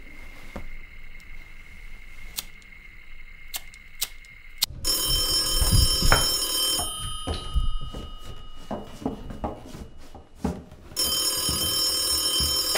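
Telephone bell ringing twice, each ring lasting about two seconds with a pause of roughly four seconds between them, and a few small knocks and clicks in between.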